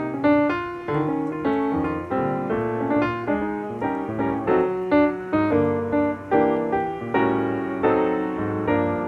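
Background piano music, notes struck and decaying in a steady rhythm.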